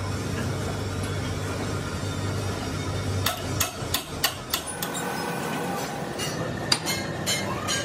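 Sharp steel clinks of a wrench working the lathe chuck jaws tight on a hydraulic cylinder tube, about half a dozen in quick succession about halfway through and a few more near the end, over a steady low machine hum.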